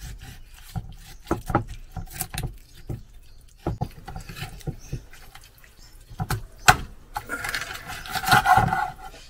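Kitchen knife cutting through raw chicken on a wooden cutting board: scattered knocks and taps of the blade striking the board, with a longer, louder stretch of noise near the end.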